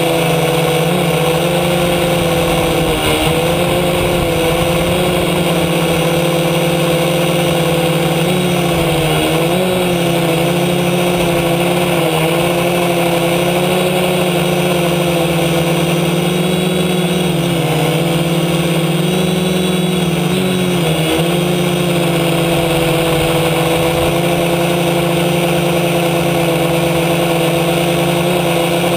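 F450 quadcopter's brushless motors and propellers whining steadily, heard from a camera mounted on the frame. The pitch wavers and dips briefly a third of the way in and again past the middle as the motors slow and speed up.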